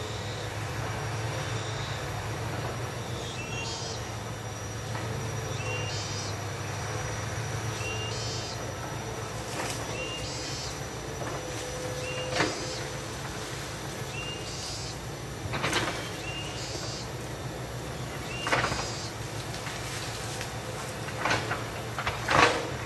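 Hitachi EX200 excavator's diesel engine running steadily at a distance while it works in the forest. Five sharp cracks of timber breaking come in the second half, the last and loudest near the end.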